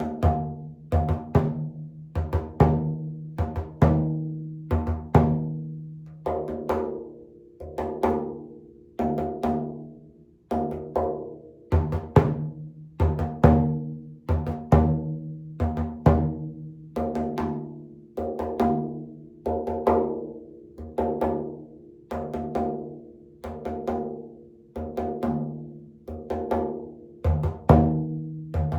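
Frame drum struck by hand in a steady, slow beat, about one stroke a second with some in quick pairs; each stroke rings on with a deep, resonant hum.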